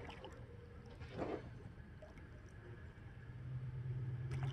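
Distant tractor engine running with a low, steady drone that grows louder about three and a half seconds in as it tows a pickup truck out of the mud. There is a brief noise about a second in.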